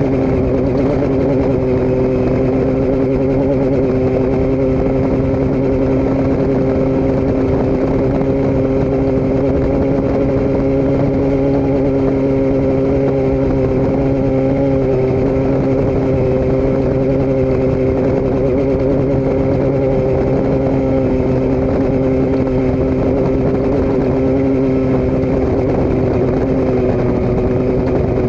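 A vehicle engine running at a steady speed in a constant drone, its pitch rising slightly near the end.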